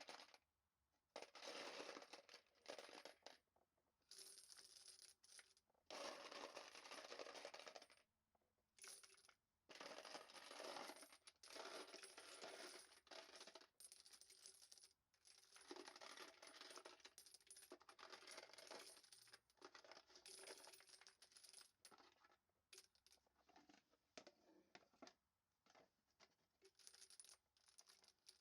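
Brass rifle cartridge cases rattling and clinking together as they are handled, in faint irregular bursts a second or two long with short pauses between.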